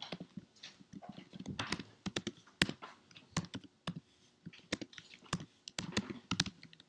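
Typing on a computer keyboard: irregular runs of sharp keystroke clicks.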